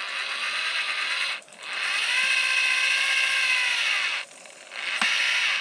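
Power drill driving a screw in three trigger runs, the middle one the longest, its whine rising in pitch and then falling as the motor speeds up and slows.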